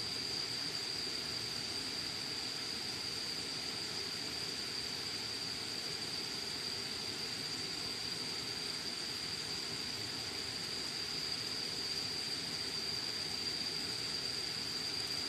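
Insects chirring in one steady, unbroken high-pitched drone, over a faint steady hiss.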